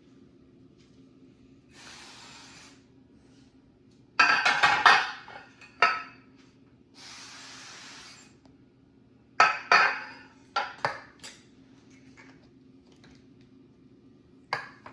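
Cooking spray from an aerosol can hissing in two steady bursts of about a second each. Between and after the bursts, donut molds clatter and knock as they are handled.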